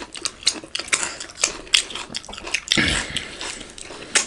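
Close, wet mouth sounds of eating juicy momo dumplings: rapid lip smacks and slurps as momo juice is licked from fingers, with a longer, louder wet slurp about three seconds in.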